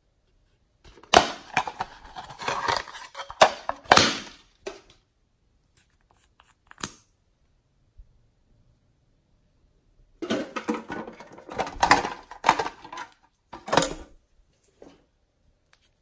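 Crisp clicking, tapping and rattling from small plastic containers being handled and opened. It comes in two busy stretches a few seconds apart, each a quick run of sharp clicks.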